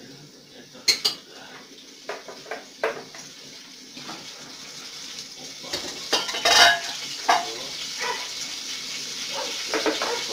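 Yeast starter poured from a plastic tub into the apricot mash in a plastic fermentation tank: liquid pouring and splashing in, building up after a few seconds. The tub knocks against the tank's neck, sharply about a second in, with a louder clatter midway and more knocks near the end.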